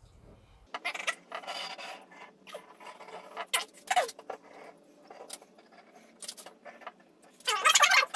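Squeeze bottle of wood glue being handled and squeezed onto the wood: irregular short scrapes and rubs, with a cluster of louder sputtering squirts near the end.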